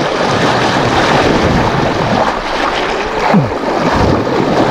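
Fast river current rushing and splashing over shallow rapids close to the microphone, with wind buffeting the microphone.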